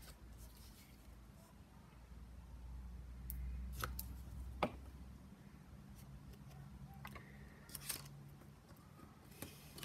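Quiet handling of paper card and a glue stick, with a few light clicks and taps as paper wheels are glued on, over a low steady hum.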